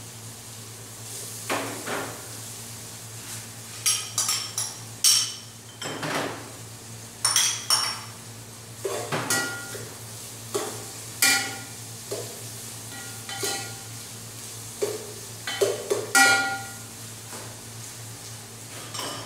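Metal utensil clinking, knocking and scraping against an aluminium cooking pot while stirring frying aromatics, in irregular strikes, some of them ringing briefly.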